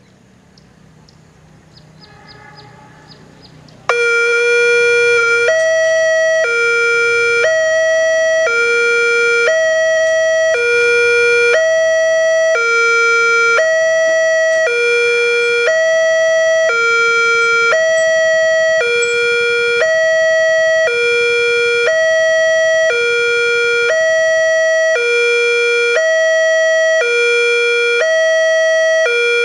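Railway level-crossing warning alarm from a horn loudspeaker, starting suddenly about four seconds in after faint background rumble: a loud electronic two-tone signal alternating evenly between a lower and a higher tone, warning that a train is approaching and the barriers are closing.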